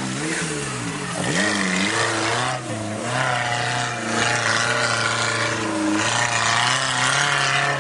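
Off-road 4x4's engine revving hard, its pitch dropping and climbing again several times, with a deep dip about a second in and another near three seconds in.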